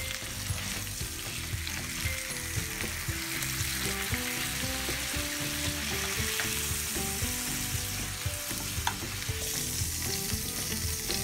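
Ribeye steaks sizzling steadily in a frying pan as they are lifted out with tongs, with a melody of short notes under the sizzle.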